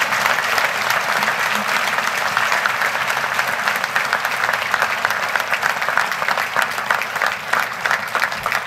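Large audience applauding: dense, steady clapping from many hands, thinning a little near the end.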